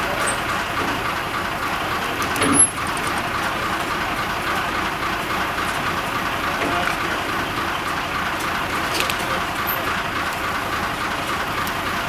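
Heavy construction machinery, most likely the crane holding the suspended precast concrete section, running steadily. A single sharp knock comes about two and a half seconds in.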